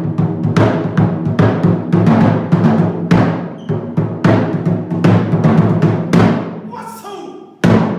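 Japanese taiko drums played in a fast, driving pattern of strikes, each ringing out and fading. The drumming drops out briefly about seven seconds in and starts again just before the end.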